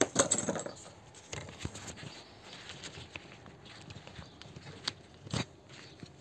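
Light metallic clicks and scraping from handling at an Opel Zafira B's jammed bonnet latch, with two sharper clicks near the end.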